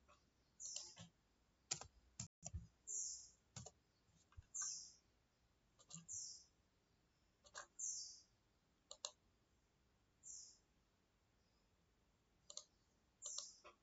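Faint computer mouse clicks, scattered irregularly, with a short high chirp that falls slightly in pitch repeating every second or two.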